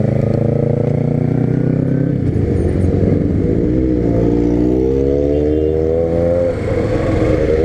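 Honda CB300 single-cylinder motorcycle engine running under way. The engine note sags about four seconds in, climbs steadily, drops briefly near the end, then climbs again.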